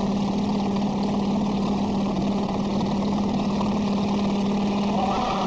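Tow boat's engine running at a steady speed with a constant drone, over the rush of water and wind, heard from aboard the boat.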